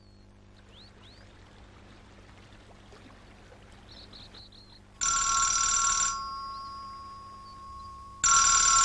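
Telephone ringing twice with an electronic ring, each ring about a second long and about three seconds apart, before the call is answered. Faint high chirps come before the first ring.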